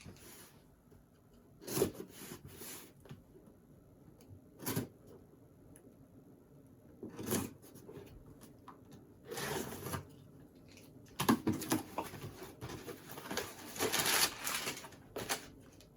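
A small parts package being opened by hand: a few scattered taps and clicks, then longer stretches of rustling and crinkling packaging near the end.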